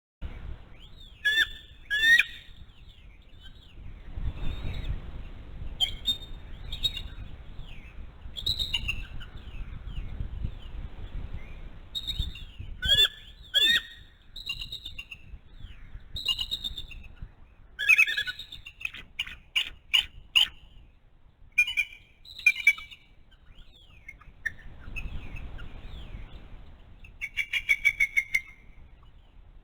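Adult bald eagle calling: high, sharp, piping chirps and, in the second half, fast chattering runs of repeated notes, with other forest birds singing as well. A low rumble of wind on the microphone rises and falls.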